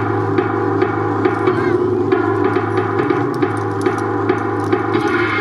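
Recorded yosakoi dance music played over outdoor loudspeakers, with a steady drum beat of about two strikes a second over a full instrumental backing.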